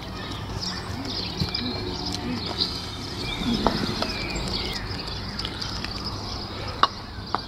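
Birds chirping over a faint outdoor murmur, then near the end a sharp clack as a croquet mallet strikes a ball, followed by a lighter click.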